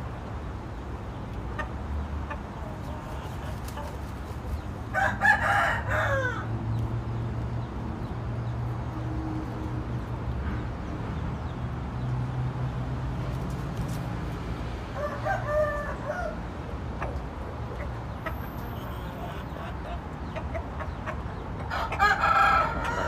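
Gamecock roosters crowing three times, each crow about a second long, the middle one fainter and further off.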